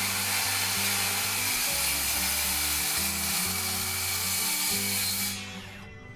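Cordless circular saw cutting through a thick, old timber beam with a steady high whine, then winding down and stopping about five seconds in. Background music plays underneath.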